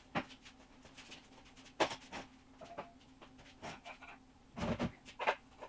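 Scattered clicks, knocks and clinks of hand tools and containers being handled on a garage floor, with a heavier thud about three-quarters of the way through, over a faint steady hum.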